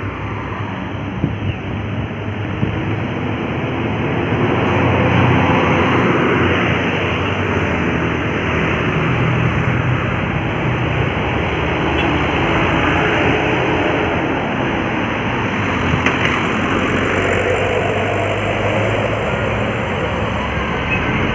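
Road traffic with heavy vehicles, buses and trucks, driving past. Engine hum sits under steady tyre and road noise, growing louder about four seconds in.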